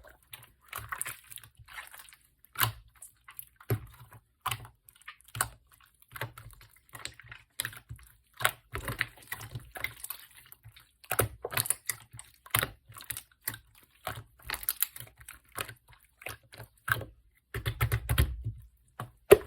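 Slime being handled close to the microphone while gold is marbled into it: irregular sticky clicks and crackles, with a few dull thumps, the strongest near the end.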